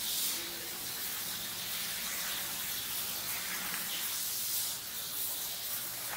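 Steady hiss with a faint low hum underneath, keeping the same level throughout with no distinct knocks or cuts.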